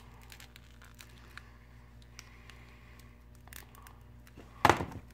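Faint, scattered crackling and ticking as a cracked smartphone glass front panel is handled in gloved fingers, then one short loud noise about four and a half seconds in.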